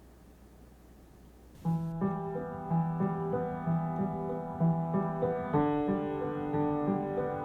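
Quiet room tone, then about two seconds in piano music begins: a steady pattern of repeated notes over a low bass line.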